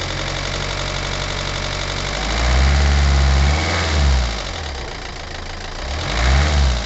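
Hyundai i40 engine running with a ticking noise, revved up and let fall back twice, about two seconds in and again near the end. The ticking is louder since the timing chain was changed.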